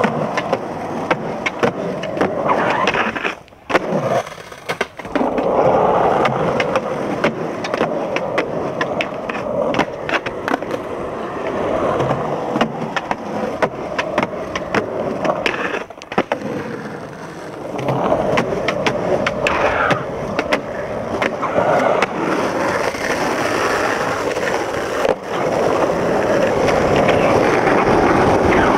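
Skateboard wheels rolling hard over rough concrete and asphalt, close up. The rolling is broken by many sharp clacks and knocks as the board is popped, hits the ledges and lands. The rolling drops away briefly about four seconds in.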